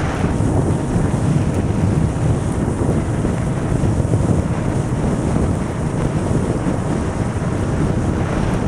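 Steady wind rushing over the microphone of a motorcycle travelling at motorway speed, a dense low roar that buries any engine or tyre sound.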